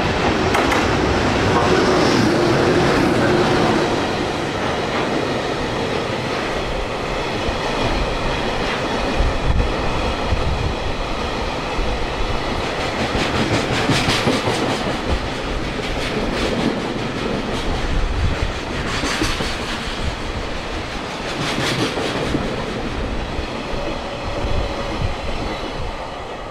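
JR Freight EH200 electric locomotive going by with a freight train of container flatcars and tank wagons, the wagon wheels clacking over the rail joints. The clatter eases near the end as the last wagons pass.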